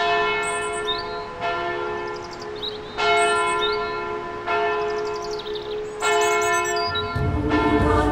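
Church bells tolling, a strike about every one and a half seconds, each left to ring on. Short high chirps sound between the strikes, and music comes in near the end.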